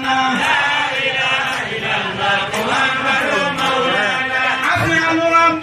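A man's voice chanting an Islamic devotional chant into a microphone, in long held notes that glide and waver in pitch.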